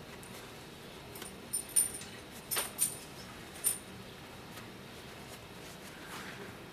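A handful of light, sharp metallic clicks and clinks, bunched in the first half, from a small metal carburetor part being handled and wiped clean with a paper shop towel.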